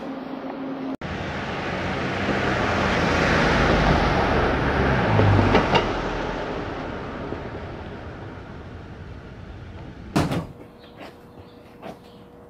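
A motor vehicle passes on the street, its noise swelling over a few seconds and fading away. Near the end comes a sharp knock from a door opening, then quieter indoor sound with a faint steady hum.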